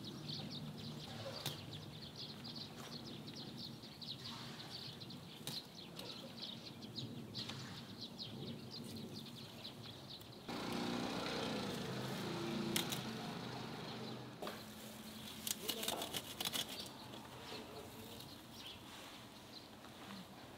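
Faint outdoor ambience with small birds chirping repeatedly over a low steady hum. About ten seconds in, a louder stretch of noise rises for a few seconds, and later a quick run of sharp clicks.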